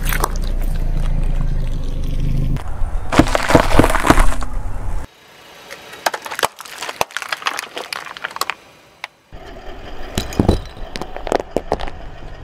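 A car tyre rolling slowly over things and crushing them one after another, with a low rumble from the tyre and a loud run of crackling and breaking. Plastic coffee cups crack sharply under the tyre, and sticks of chalk snap and crunch near the end.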